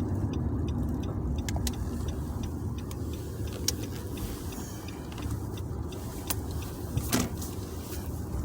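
Steady low vehicle rumble with a few scattered light clicks; no horn is sounding.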